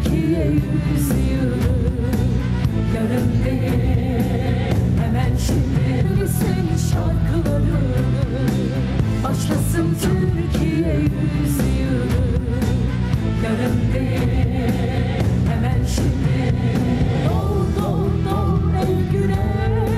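Song playing, with singing over a steady bass and drum beat.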